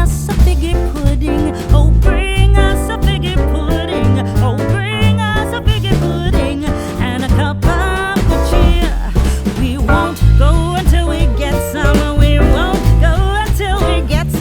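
Background music with a strong, shifting bass line and a wavering melody over it.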